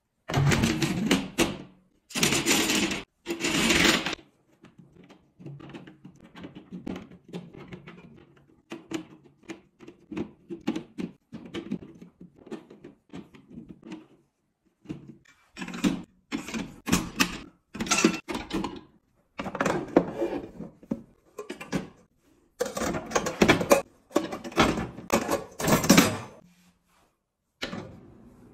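Kitchen-drawer organizing sounds. First a perforated metal pegboard insert scrapes and rattles into a metal drawer. Next come many small clicks and taps as pegs are pushed into the board, then stainless pots, lids and a frying pan clink and clatter as they are set in.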